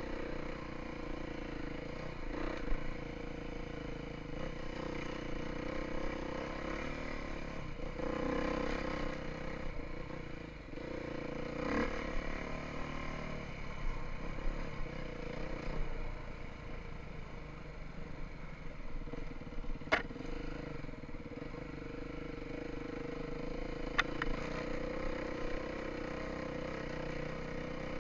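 Beta 350 enduro dirt bike engine running at low, steady speed while riding a rough trail, with a few sharp knocks from the bike over the ground.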